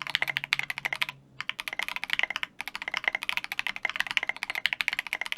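Fast typing on a Cannonkeys Savage65 mechanical keyboard with lubed Durock Alpaca linear switches, an FR4 plate and SA keycaps: a quick, even run of keystrokes with a short pause about a second in.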